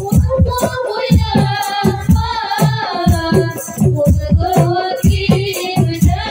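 A woman's solo voice singing sholawat through a microphone in a long, wavering, ornamented melodic line, over a hadroh ensemble's frame drums playing a quick steady rhythm with jingling, rattling percussion.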